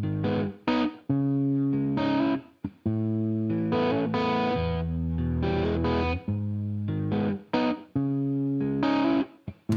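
Rock background music: distorted electric guitar chords, each held and then cut off short, with brief gaps between them.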